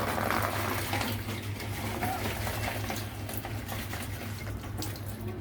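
Water splashing and running as dried banana leaves are rinsed by hand, with short irregular splashes throughout.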